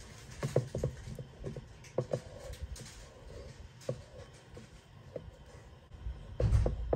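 Wooden spoon stirring thick strawberry-cranberry jam in a stockpot: irregular soft knocks and scrapes of the spoon against the pot, with a louder thump near the end. The jam is heating but not yet at a rolling boil.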